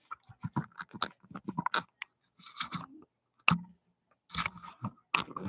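Handling noise: a spiral-bound paper pad being shifted and turned on a tabletop, an irregular run of small knocks, taps and rustles.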